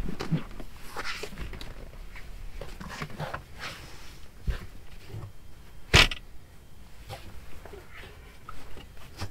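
A person clambering onto a thin mattress inside a car: rustling of clothes and bedding and soft bumps, with one sharp knock about six seconds in.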